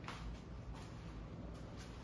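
Quiet room tone: a steady low hum with a few soft, brief rustles.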